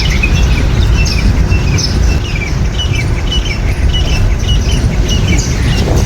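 Small birds chirping in a quick, ongoing series of short high notes over a steady, even noise of falling rain.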